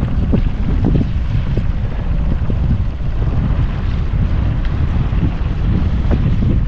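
Wind buffeting the microphone in a steady loud low rumble, with small scattered knocks from the boat and water.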